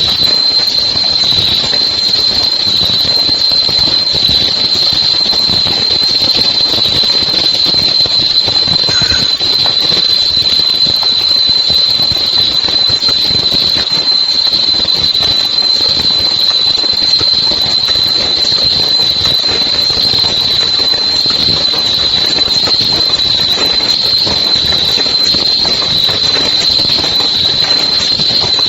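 Fully automatic face mask making machine running steadily: a continuous high-pitched whine over a dense mechanical clatter.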